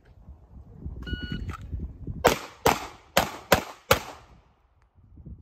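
A shot timer's start beep, then five pistol shots in quick succession, about two to three a second.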